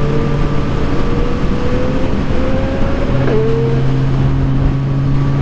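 Motorcycle engine running at a steady road speed, its pitch drifting only slightly, over a constant rush of noise.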